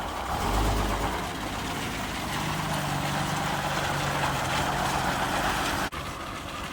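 Diesel engine of a 1958 GMC PD-4104 Greyhound bus (Detroit Diesel) running, with a low rumble about half a second in, then a steady hum. The sound cuts off abruptly near the end.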